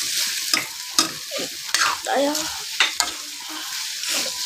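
Shredded chicken sizzling in a wok as it is stir-fried. A plastic spoon scrapes and knocks against the pan several times.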